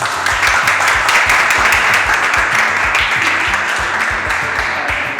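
Applause breaking out right after a prize-draw winner is announced, over background music with a steady beat; the clapping eases off near the end.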